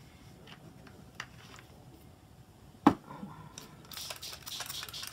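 A single sharp knock about three seconds in, then a plastic trigger spray bottle misting water onto paper: a run of quick squirts with a hiss, starting about a second later.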